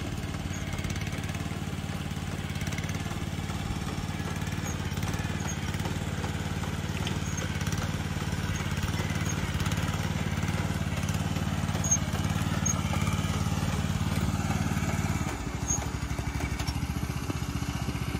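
Small engine of a walk-behind rice transplanter running steadily as the machine plants seedlings in a flooded paddy; about fifteen seconds in, the engine note drops and changes.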